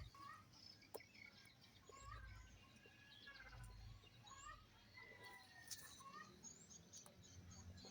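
Faint chirping of small birds in the background: many short calls and brief pitch glides scattered throughout, with a few soft clicks.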